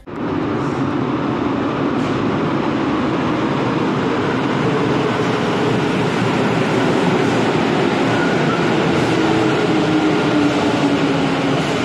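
Santiago Metro NS93 rubber-tyred train running past along an underground station platform: a steady rolling rumble with a faint motor whine that drops a little in pitch near the end.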